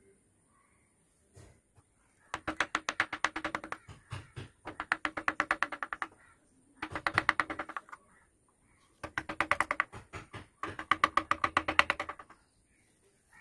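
A mallet tapping a carving chisel into wood in five quick bursts of rapid, even taps, about nine or ten a second, each tap giving the same short wooden ring.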